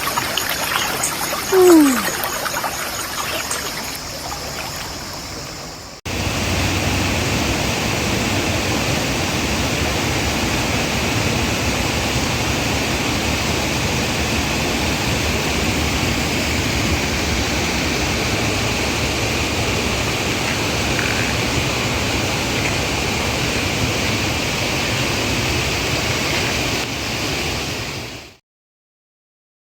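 Flowing water trickling and running, with a brief falling tone about two seconds in. After a cut about six seconds in comes a louder, steady rush of water, like a waterfall or rapids, that stops abruptly near the end.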